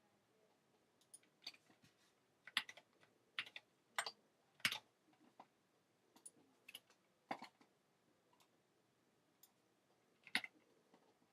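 Irregular keystrokes on a small computer keyboard, typing code: single taps and short quick runs with pauses between.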